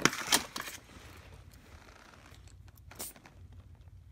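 Handling noises: a quick run of sharp clicks and rustling right at the start, then a single click about three seconds in, as hand tools are handled against the tire.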